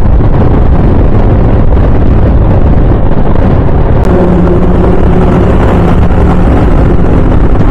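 Scooter riding at highway speed, heard from a helmet-mounted camera: loud, steady wind rush over the microphone, with a steady engine hum coming up about four seconds in.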